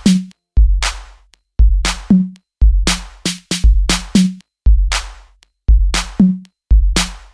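Electronic background music: a drum-machine beat with a deep kick drum about once a second and sharp hits in between.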